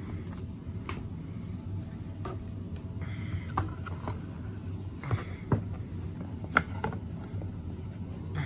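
Folding cardboard game boards being handled: several light knocks and taps of thick board against board and the box, with a short sliding rub, over a steady low hum.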